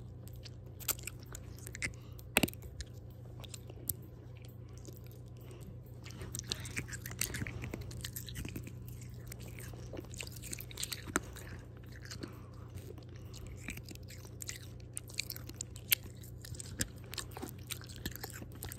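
Close-up chewing and biting on the hard candy beads of a candy bracelet, with irregular crunches and clicks, over a steady low hum.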